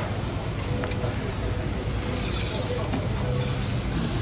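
Food sizzling on a teppanyaki iron griddle, a steady hiss of frying and steam.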